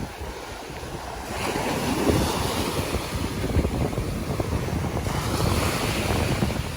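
Sea waves washing onto the beach, with wind buffeting the microphone. The wash is quieter at first and swells up about a second in.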